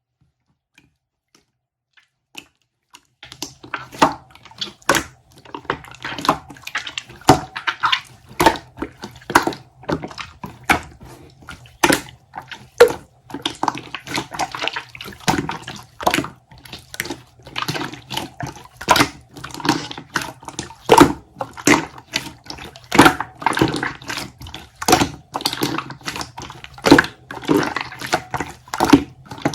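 Wet sloshing and squishing, repeated about twice a second over a steady low hum, starting about three seconds in.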